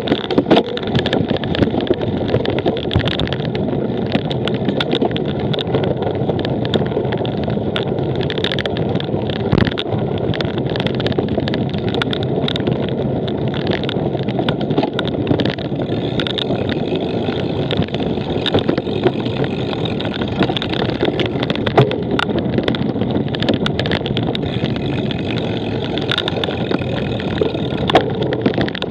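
Cyclocross bike ridden hard over a rough race course: a steady rush of wind and tyre noise with frequent rattling clicks and knocks from the bike.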